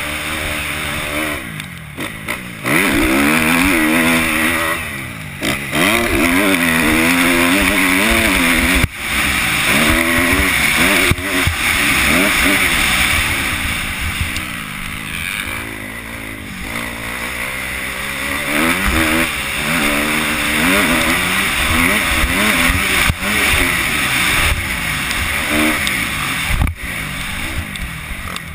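2011 Kawasaki KX250F's four-stroke single-cylinder engine under hard riding, the throttle opening and closing every second or two so the pitch repeatedly climbs and drops as it shifts through the gears.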